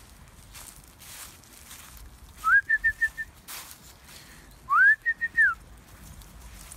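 A person whistling a dog-calling whistle, twice. Each call is a rising note followed by quick short notes, and the second call ends on a falling note.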